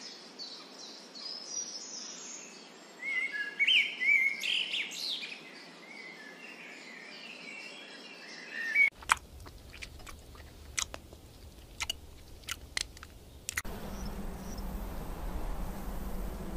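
Birds chirping in quick runs of short calls for about nine seconds. The chirps then give way to a few sharp clicks, and a low steady hum sets in near the end.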